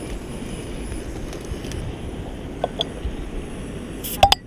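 Steady low rushing background noise, with a few sharp clicks; the loudest, near the end, comes as a black folding knife is handled and opened.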